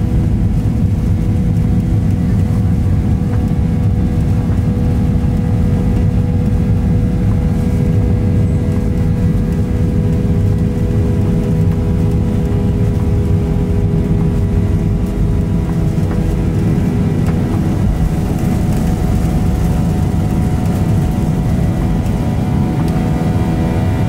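Steady cabin noise inside a Boeing 737-900ER: a low, even roar of its jet engines and airflow, with several steady hums over it and a few higher hums joining toward the end.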